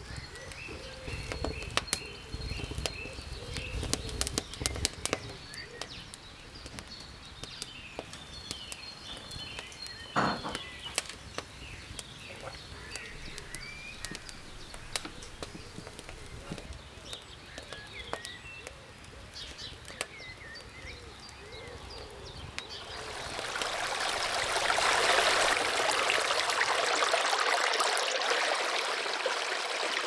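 Small birds chirping and twittering, with scattered faint clicks and crackles. About three-quarters of the way through, the even rush of a shallow stream flowing over stones swells up and becomes the loudest sound.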